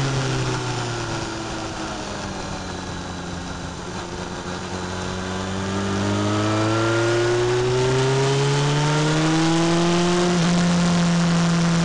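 Motorcycle engine on the move with a rush of wind: the revs fall away for a few seconds, then climb steadily, dip sharply about ten seconds in and hold steady.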